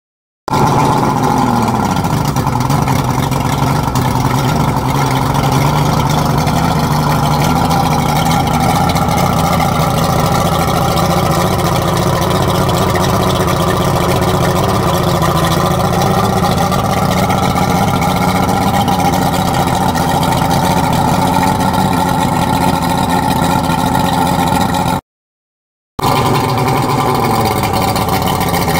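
Twin Yamaha 200 hp Saltwater Series two-stroke V6 outboards running out of the water on hose flushing attachments. The revs fall and settle to a steady idle about two seconds in. Near the end the sound cuts out for a moment and comes back with the revs falling again.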